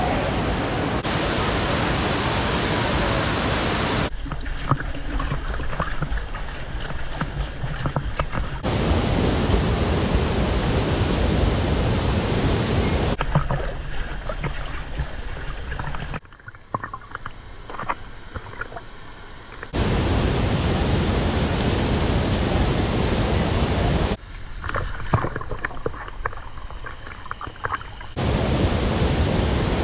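Waterfall rushing as a steady roar of falling water, broken three times by clips where the roar is dull and muffled, with scattered splashes.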